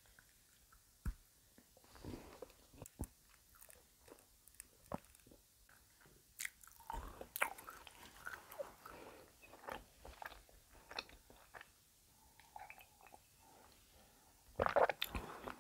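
Close-miked biting and chewing of a chocolate Easter egg: soft, irregular mouth clicks and small crunches, with a louder sound near the end.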